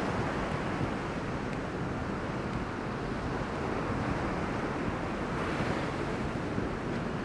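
Hurricane swell breaking on the beach as a steady roar of surf, with stiff offshore wind buffeting the microphone.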